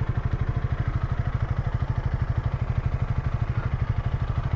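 Honda Rebel 300's single-cylinder engine running steadily, a low even pulse of about ten beats a second with no change in pace.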